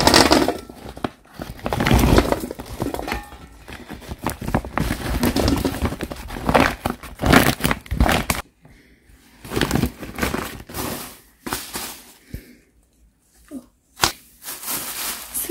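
Plastic covers and a mesh sack rustling and crinkling as they are handled and koorka (Chinese potato) tubers are tipped out of them into a stainless-steel colander. The rustles and knocks are irregular, busy at first and sparser with short pauses in the second half.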